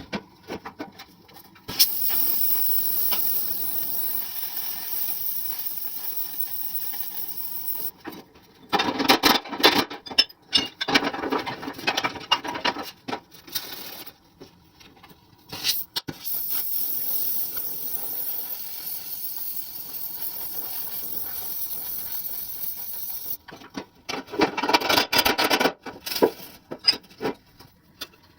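Steady hiss of compressed air, running for about six seconds, stopping, then running again for about seven seconds. Between and after the two hisses come irregular bursts of rubbing and scraping.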